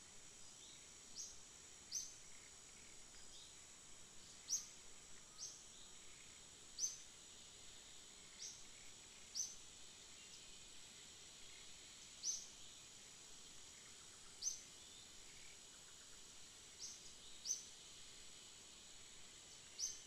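Faint tropical forest ambience: a steady high insect drone, with a short high chirp repeating every second or two.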